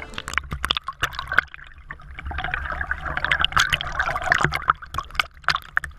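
Shallow seawater sloshing and gurgling around a GoPro held at the surface, with many irregular splashes and pops as water washes over the camera.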